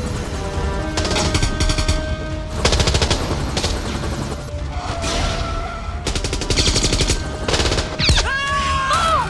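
Repeated bursts of automatic gunfire, rapid shots in runs of about a second each, over a steady low rumble and a film score. A short, wavering high squeal sounds near the end.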